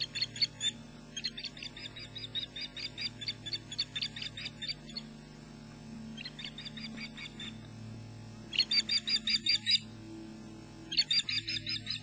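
Osprey alarm calls: bouts of rapid, high, repeated chirps, several a second, breaking off and starting again and loudest toward the end. They signal an intruder near the nest. A steady low hum runs underneath.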